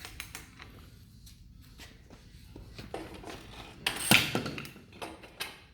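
Ratcheting pipe reamer being worked in the cut end of black steel pipe: scattered metal clicks and scrapes as it cuts away the burr, with one louder, longer metal scrape about four seconds in.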